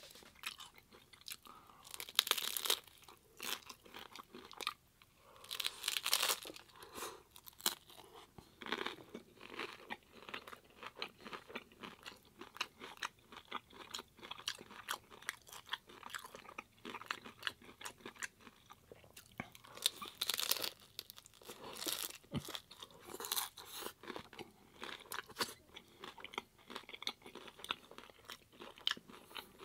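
Close-miked eating of hard corn-shell tacos: crisp crunching bites and steady chewing, with a few louder crunches as the shells break.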